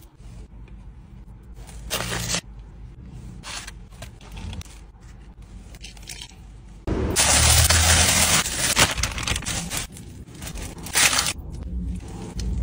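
Food being handled by hand: rustling and scraping as a filled burger bun with fries is torn apart and biryani rice is broken up. There is a short burst about two seconds in, a louder crackly rustle lasting about two seconds near the middle, and another short burst near the end.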